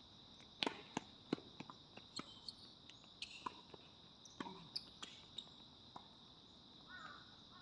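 Tennis rally: irregular sharp pops of racket strikes and ball bounces on a hard court, with footsteps, over a steady high-pitched insect buzz.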